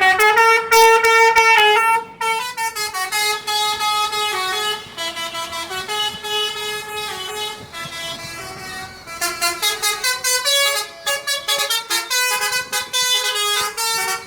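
Basuri telolet bus horn playing a melody of stepping notes, held notes at first, then a fast stuttering run of short notes in the second half.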